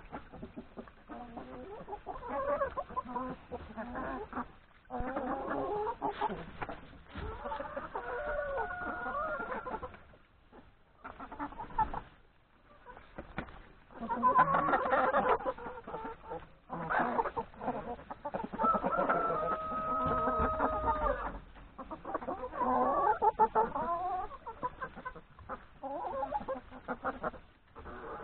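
A flock of hens clucking continuously, with a rooster crowing twice: a shorter crow about eight seconds in and a longer held crow around nineteen to twenty-one seconds.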